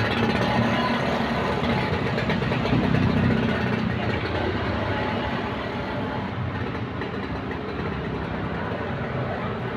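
Vespa scooter engine running steadily, a dense mechanical noise that eases off slightly after the middle.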